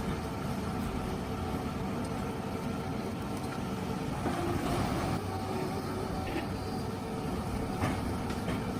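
Komptech Crambo 6000 log shredder running steadily under load as it shreds logs, a continuous heavy machine noise with a steady drone.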